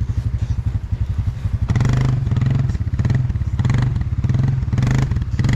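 A small vehicle engine, such as an ATV's or side-by-side's, running steadily. From about two seconds in it swells and eases in a regular rhythm, a little under twice a second.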